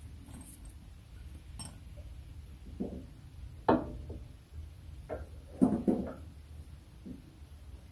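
A few scattered metal clinks and knocks as the front shock's lower mounting bolt is worked into the mount hole: one sharp clink about halfway through, then a quick cluster of clinks a couple of seconds later.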